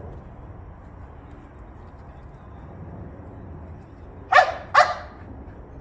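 Dog barking twice, two sharp barks about half a second apart.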